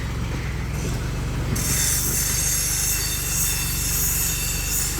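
Tractor engine running steadily, joined about one and a half seconds in by a loud, shrill metallic squeal that cuts off suddenly at the end.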